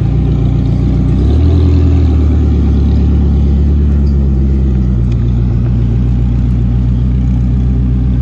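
Koenigsegg Gemera's V8 running at low speed as the car creeps along. The engine note rises slightly about a second in, then holds a steady low drone.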